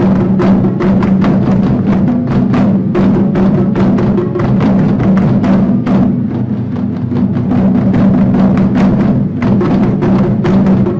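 Japanese taiko drums struck in time with a recorded backing song: rapid, evenly spaced drum hits over steady background music.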